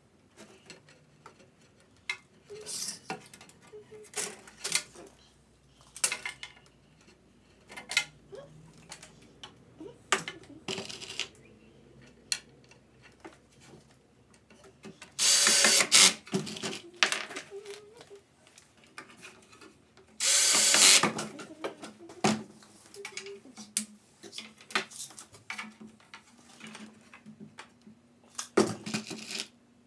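Pine boards handled and knocked about on a wooden workbench: scattered knocks, taps and clatter, with two louder, rasping bursts of about a second each around the middle.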